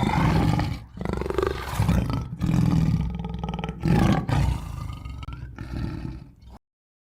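A large animal's loud, deep calls in several drawn-out bouts with short breaks between them, cutting off abruptly near the end.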